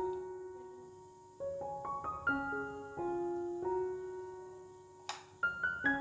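Background piano music: a slow melody of single notes that ring out and fade. One held note dies away before a new phrase begins about a second and a half in. There is a brief hiss-like click about five seconds in.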